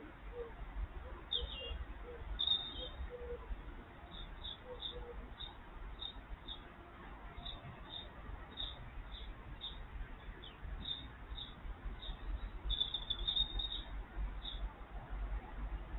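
Small birds calling: short high chirps repeated about twice a second, thickening into a quick cluster near the end, with a few lower notes in the first few seconds over a low rumble.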